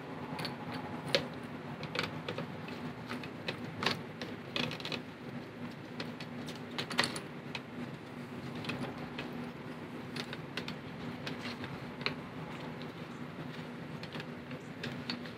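Irregular light clicks, taps and clatters of plastic parts as a fuel pump module is handled and turned in gloved hands, over a steady low hum.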